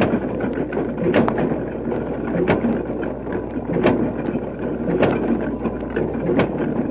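Construction-vehicle engine sound effect: a steady mechanical rumble with a low hum, and a knock about every 1.3 seconds.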